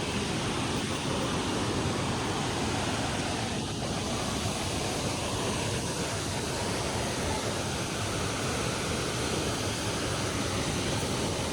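Dangar Falls waterfall giving a steady, even rush of falling water.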